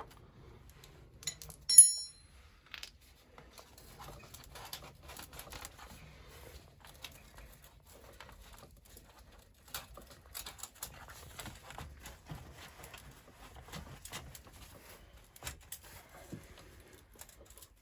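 Hand tools working the bolts on a motorcycle exhaust: scattered small metal clicks and ticks of a spanner and socket being handled. There is one sharp, ringing metal clink about two seconds in.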